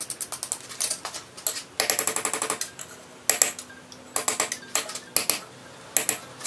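Hand hammer striking a red-hot O1 tool-steel knife blade on a steel anvil in rapid bursts of blows separated by short pauses: the forged blade is being straightened.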